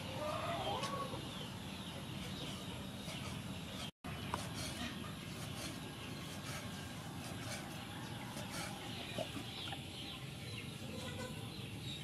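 A hen clucking in the first second, then faint scattered ticks of a knife slicing raw pork on a wooden cutting board.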